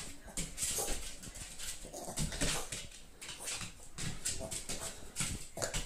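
Small dog jumping up again and again at a bone held above it, giving short whimpers among a string of irregular clicks and taps from its jumping.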